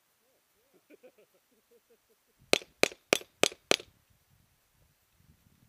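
Five rapid pistol shots in just over a second, each a sharp crack.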